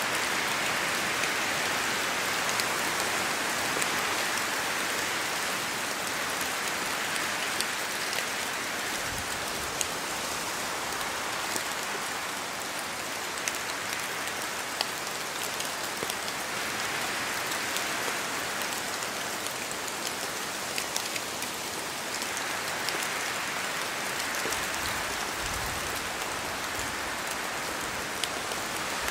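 Steady rain falling in a spruce forest, with many separate drops falling from the trees. Wind swells and fades through the branches a few times.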